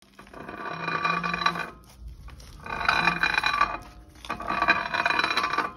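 Front brake of a VW Gol G6 making a loud metallic scraping squeal with ringing tones, coming in three bursts about a second and a half apart. The owner says something seems to be catching in the brake caliper and the brake is binding.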